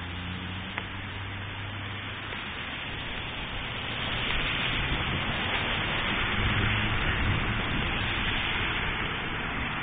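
Hailstorm pelting the pavement as a steady hiss that grows louder about four seconds in, with the low rumble of passing cars on the wet road.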